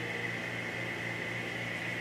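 Audio from a TMC GPR-90 valve communications receiver: a steady, high CW beat note over hiss and a low hum. The crystal filter is set narrow and the opposite sideband is nulled, so only one beat tone is heard.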